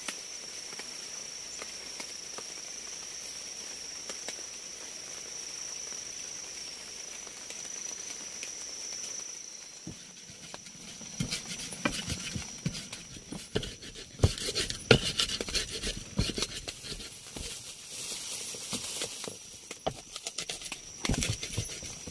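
A round stone pestle crushing and grinding red chillies on a wooden grinding plate, with irregular knocks and scrapes starting about ten seconds in. Before that, a steady high insect trill runs over a soft hiss.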